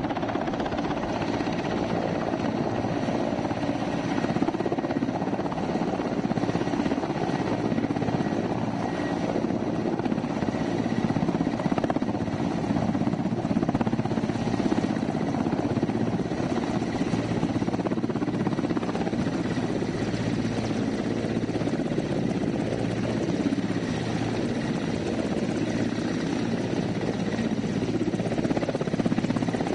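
Mil Mi-8-family twin-turbine transport helicopters running at close range as they hover low and set down: a steady, heavy rotor and engine noise with a faint steady turbine whine.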